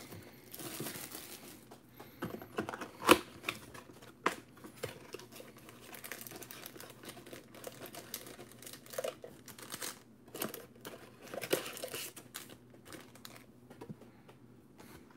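Plastic shrink wrap crinkling and tearing as it is stripped off a trading-card hobby box, followed by the cardboard box and its card packs being handled. Irregular crackles and sharp taps run throughout, the loudest crack coming about three seconds in.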